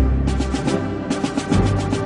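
Background music with deep sustained bass notes and a quick, evenly repeating percussive beat.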